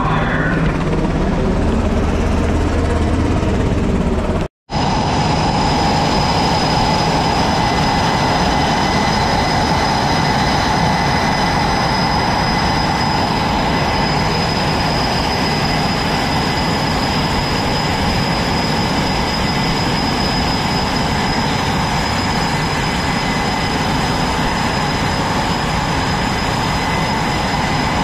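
Steady, loud jet engine noise of carrier-deck fighters running, with a high, steady turbine whine. The sound drops out for a split second about four and a half seconds in.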